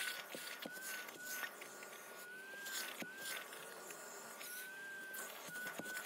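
Wet-and-dry upholstery extraction vacuum running quietly, with a steady high whine that wavers briefly in pitch a few times as its clear nozzle is drawn over a carpeted car floor mat. Light scraping clicks come from the nozzle on the carpet.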